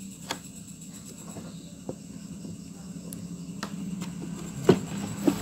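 A few light knocks and clicks from handling the opened speaker's circuit board and wooden cabinet, the loudest near the end, over a low steady hum.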